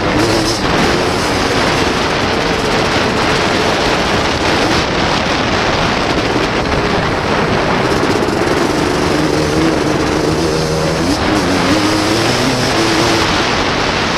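ATC three-wheeler's engine racing on a motocross track, its pitch rising and falling as the rider gets on and off the throttle through the corners and straights, heard onboard under heavy wind rush on the microphone.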